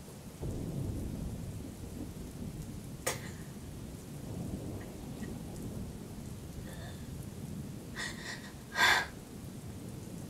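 Thunderstorm: steady rain with low thunder rumbling that swells about half a second in. A sharp click comes about three seconds in, and a loud sharp burst comes near the end.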